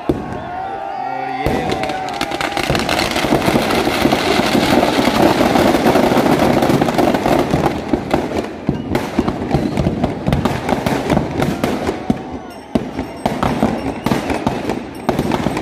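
Firecrackers packed inside a burning Ravana effigy going off in a dense, rapid crackle of bangs that starts about a second and a half in, thinning to scattered louder bangs near the end.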